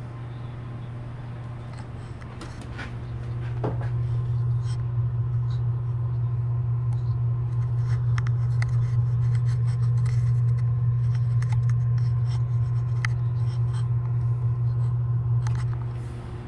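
A steady low hum runs throughout and grows louder about three to four seconds in, heard from inside the MDF subwoofer enclosure's port. Light scrapes and clicks of handling against the wood sit on top.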